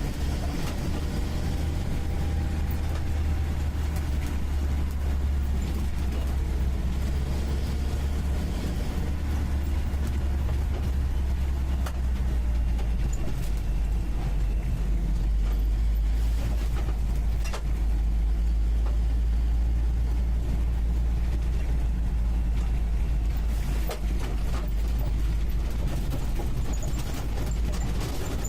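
UAZ 469B's four-cylinder petrol engine running under way, heard from the passenger seat inside the cab as a steady low drone that drops lower about a third of the way in. A couple of brief knocks come later.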